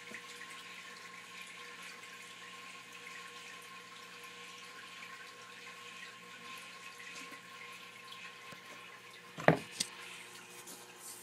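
Steady low hiss with a faint hum, then about nine and a half seconds in two sharp knocks in quick succession as the recording phone is bumped and moved.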